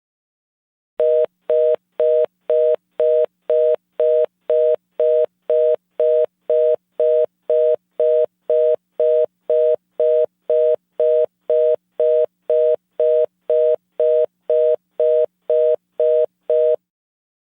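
North American telephone fast busy (reorder) tone: a two-note beep repeating about twice a second, starting about a second in and stopping shortly before the end. It signals that the call cannot be completed.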